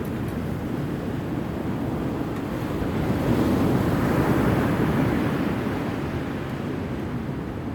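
Surf washing in at the seashore, swelling louder in the middle as a wave comes in and then easing off, with wind rumbling on the microphone.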